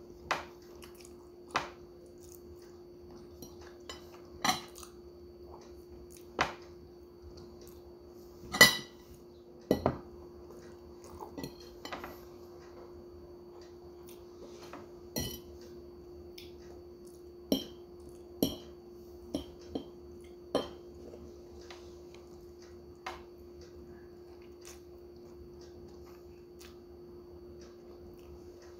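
A metal fork clinking and scraping against a plate in scattered short clicks during a meal, the loudest about nine seconds in, over a steady low hum.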